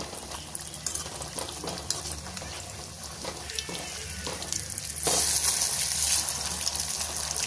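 Batter-coated susiyam balls deep-frying in hot oil in an aluminium kadai, a steady crackling sizzle with scattered sharp pops and clicks as a slotted metal spoon turns them. The sizzle gets louder and hissier about five seconds in.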